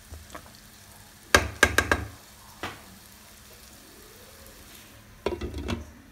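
Wooden spatula stirring chopped carrots, potatoes and onions frying in a pan, over a faint sizzle. There is a quick run of sharp knocks against the pan about a second in, then one more. Near the end a glass lid clatters as it is set on the pan.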